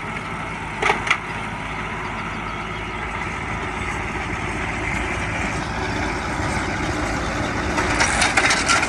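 Farm tractor engine running steadily, with a couple of brief sharp clatters about a second in and a cluster of rattles near the end.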